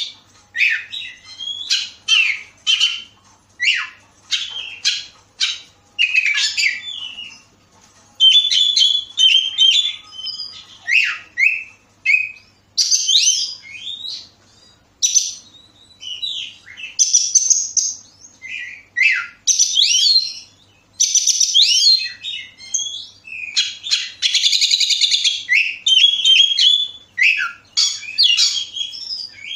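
Oriental magpie-robin singing a long, varied song of loud whistled phrases, rapid chirps and quick sweeping notes, broken by short pauses. It is a full song used as a 'pancingan', a lure to prompt other magpie-robins to sing.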